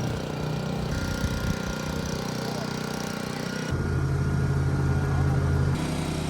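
Small outboard boat motor running steadily, its tone shifting abruptly about a second in and again near four seconds in.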